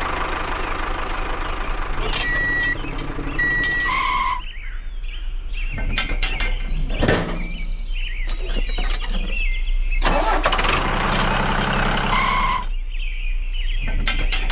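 Diesel tractor engine sound running in stretches, breaking off about four seconds in and coming back strongly around ten seconds. Two short high beeps come about two and three seconds in, and light clicks and knocks sound in the quieter gap.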